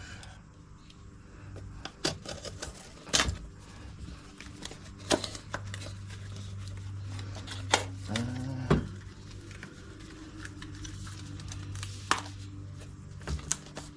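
Hand tools being handled on a bench: a scattering of sharp clicks and knocks, about six in all, over a steady low hum, with a short rising-and-falling tone about eight seconds in.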